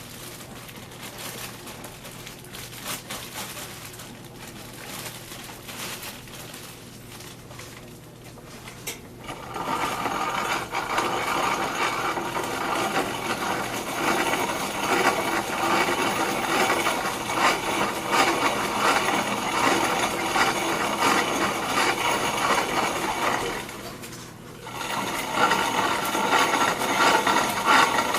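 Corona-style grain mill starting to crush a hopper full of malted barley and specialty malts, a dense grinding rattle of grain between the plates that begins about nine seconds in. Before that come only quieter, scattered handling noises. The grinding stops briefly a few seconds before the end, then starts again.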